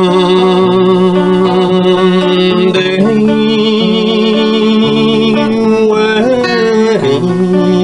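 A man singing long held notes with vibrato to his own strummed acoustic guitar, the sung pitch changing about three seconds in and again near the end.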